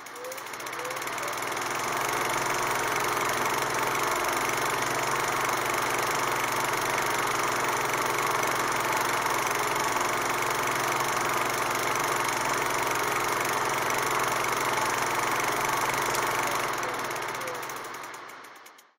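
Steady mechanical whirring noise, with no music or speech. It fades in over the first couple of seconds and fades out over the last few.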